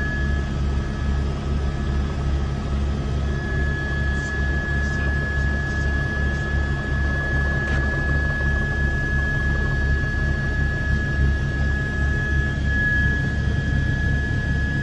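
Helicopter rotor and engine noise heard from inside the cabin: a steady rapid low throbbing from the blades under a constant high-pitched tone.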